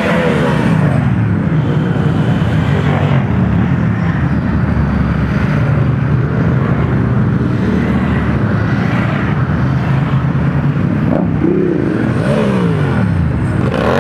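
A procession of motorcycles riding past one after another, their engines running steadily, with the pitch dropping as each nearby bike goes by; another bike closes in and passes near the end.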